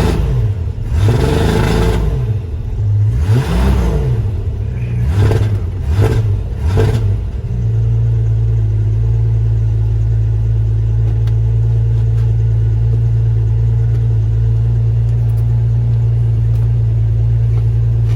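Car engine revved in about five quick blips, the pitch rising and falling each time, then settling into a steady idle for the rest.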